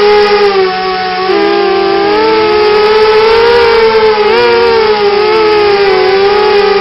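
Brushless motors of a Coptergiest CGX 250 racing quadcopter, heard up close, whining at shifting pitches that rise, fall and cross one another as the throttle changes in flight.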